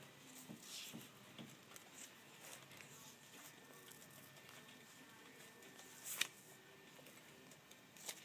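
Faint rustling and light flicks of sheer fabric swatches being turned by hand in a sample book, with a sharper swish about six seconds in and another near the end.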